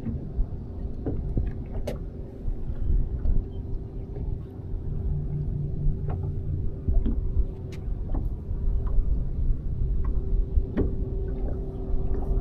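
Boat motor running with a steady hum, a held tone over a low rumble, with scattered light clicks and knocks.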